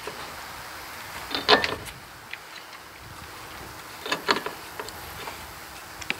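Clicks and knocks from handling the anchor mount, screws and screwdriver on the pontoon deck: a loud cluster about a second and a half in and another around four seconds, with a few single ticks between, over steady wind noise.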